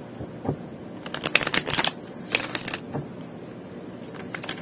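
Oracle cards being shuffled by hand: quick rustling clicks of cards slapping together, in a dense burst about a second in, another around two and a half seconds, and a few light taps near the end.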